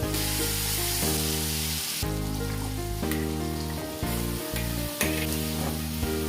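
Vegetables frying in hot oil in a pan and sizzling as they are stirred, with a few light clicks of the stirring, over background music. The sizzle is loudest for the first two seconds.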